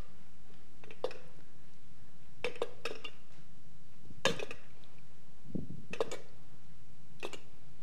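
Light clinks and knocks of a bowl or dishware being handled, about six short strokes spread unevenly over several seconds, over a steady low room hum.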